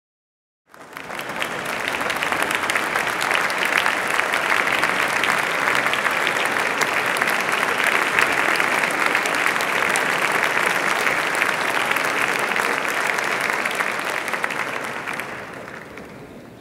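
Concert audience applauding, starting suddenly just under a second in and dying away over the last two seconds.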